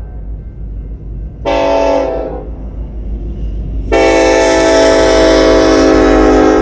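BNSF diesel freight locomotives sounding their air horn as they pass at close range: a short blast about a second and a half in, then a loud, long blast from about four seconds in, over the low rumble of the train.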